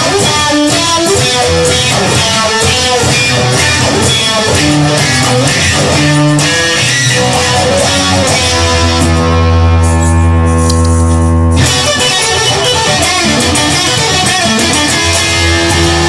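Guitar-led instrumental music, with a chord held and ringing for a couple of seconds a little past the middle before the busier playing comes back in.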